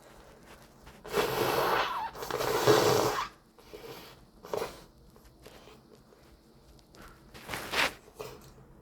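A person with a cold and a stuffed-up nose blowing it twice in a row, two long, loud blows about a second in, then a few shorter sniffles.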